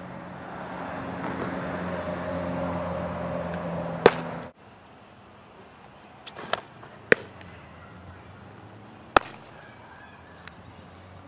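Sharp smacks of softball pitches popping into a leather catcher's mitt, the loudest about four seconds in and several more in the second half. Under the first smack a low rumble swells, then cuts off abruptly.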